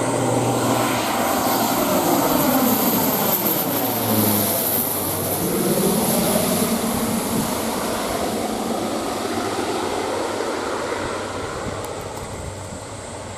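Dornier 228's twin Garrett TPE331 turboprop engines passing low on landing, the engine note sliding down in pitch as the plane goes by about four seconds in, with a high turbine whine over the propeller drone. The sound then fades as the aircraft moves away.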